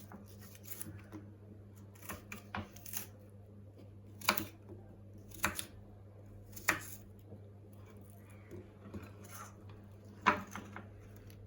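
Sharp clicks and knocks from household handling: a few in quick succession, then single ones a second or more apart, over a steady low hum.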